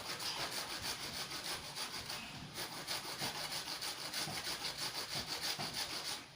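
Root vegetable being grated by hand on a grater: quick, even scraping strokes, about four a second, that stop abruptly near the end.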